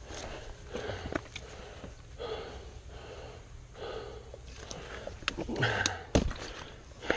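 A person breathing hard from the exertion of climbing steep steps, a heavy breath about every second and a half. A few sharp clicks or footfalls come in between, the loudest near the end.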